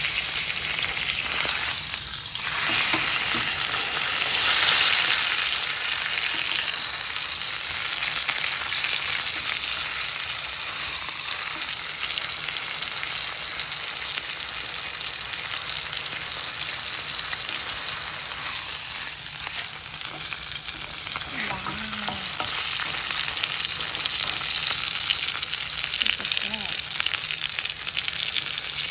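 Steak frying in butter in a pan, a steady sizzling hiss with fine crackle that grows a little louder for a few seconds near the start.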